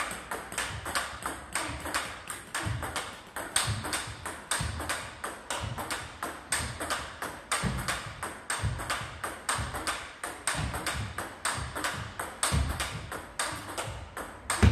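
Table tennis rally: a plastic ball clicking off rubber rackets and the table in a quick, steady rhythm of several clicks a second as forehand drives are blocked back. One louder knock comes at the very end.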